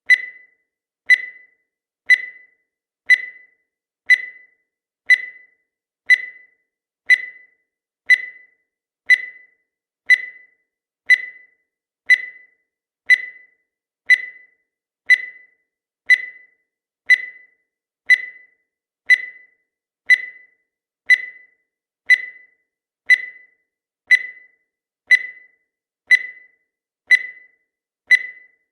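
Countdown timer sound effect: a short, high beep once every second, each one fading away quickly, evenly spaced as the seconds count down.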